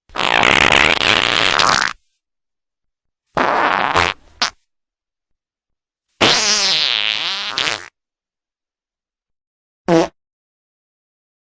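Four fart sound effects in a row, with dead silence between them: a long one of nearly two seconds, a shorter one with a quick extra blip, another long one that wobbles and falls in pitch, and a brief one near the end.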